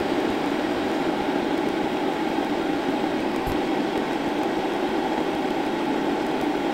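A Chinese 5 kW diesel air parking heater's fan runs on steadily after the heater has been powered off, in its shutdown cool-down cycle.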